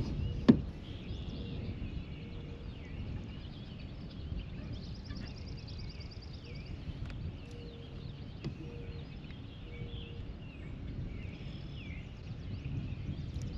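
Outdoor ambience: birds calling and singing faintly over a steady low rumble, with one sharp knock about half a second in.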